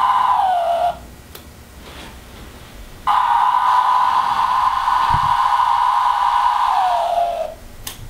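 Male Magicicada tredecim periodical cicada calling: a loud, steady buzzing whine that slides down in pitch and stops about a second in. The female answers with a single sharp wing-flick click. About three seconds in, the males call again in near-sync, holding the steady buzz before it slides down and stops, and the female's wing-flick clicks answer near the end.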